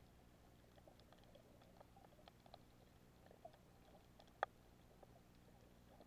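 Near-silent underwater reef ambience: faint scattered clicks and crackles over a low hum, with one sharper click about four and a half seconds in.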